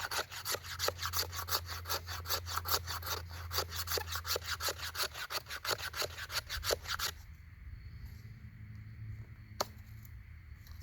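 Spine of a fixed-blade knife scraping fatwood in quick, even strokes, about five a second, to raise fine tinder scrapings. The scraping stops about seven seconds in, and a single sharp click follows near the end.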